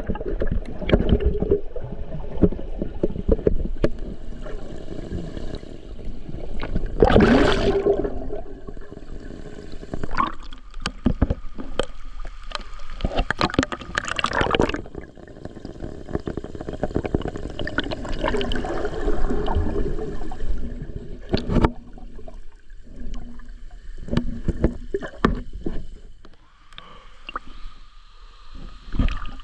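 Water splashing and sloshing close to the microphone as someone swims, with a louder splash about seven seconds in.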